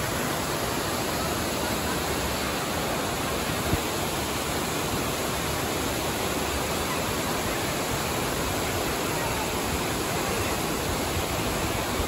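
Steady rushing of water pouring down a series of cascading waterfalls.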